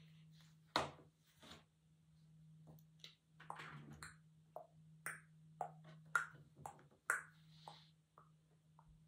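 Scattered small clicks and taps of plastic glass-paint tubes being picked up, handled and set down on a table, with a few brief rustles, over a steady low hum.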